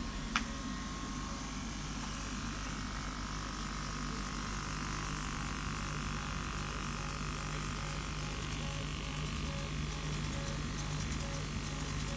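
Kamach 1290 laser cutting machine running a test job: a steady mechanical hum with a constant high whine, a sharp click shortly after the start, and faint short blips repeating about twice a second in the second half.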